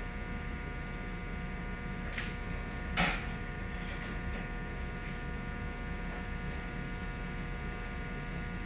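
Steady electrical hum made of several fixed tones, with one sharp click about three seconds in and a fainter click a little before it.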